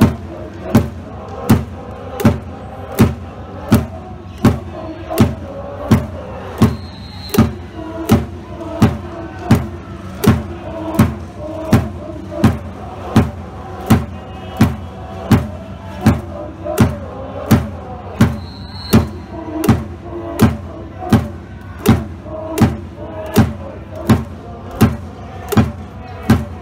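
A cheering section beating a drum at a steady pace, a little over one beat a second, with the crowd chanting along. A short high whistle, typical of a referee's whistle, sounds twice, about 7 and 19 seconds in.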